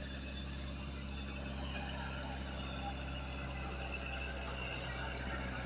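Kubota L5018 tractor's diesel engine running at a steady speed while it works the mud, a low even drone.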